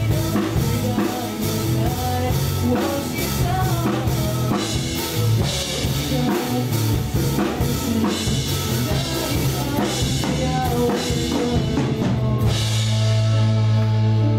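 A young man singing a Mandarin pop song into a handheld microphone, backed by a band with a drum kit keeping a steady beat. Near the end the drums drop out, leaving a held chord.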